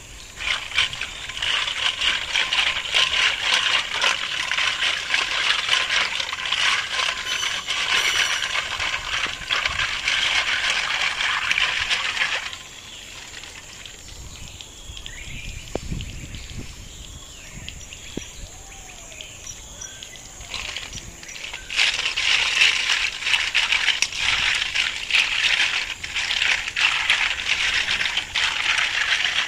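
Snail shells clicking and rattling against each other and a stainless steel basin as they are scrubbed by hand under running hose water. The clatter stops for a quieter stretch of about ten seconds in the middle, then starts again.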